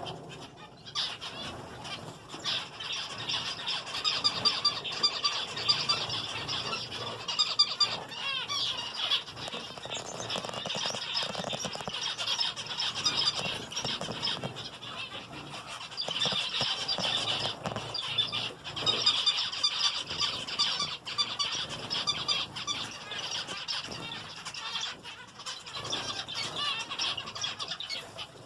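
A flock of small aviary finches, zebra finches among them, keeps up a steady, busy chatter of short squeaky calls, with now and then a flutter of wings.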